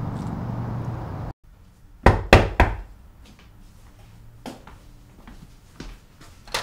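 Three quick knocks on a front door, heard from inside the room. A few faint taps and clicks follow, with a sharper click near the end.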